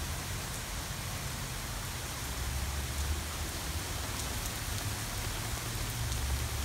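Steady rain falling on grass and a concrete walk: a continuous, even hiss with a low rumble underneath.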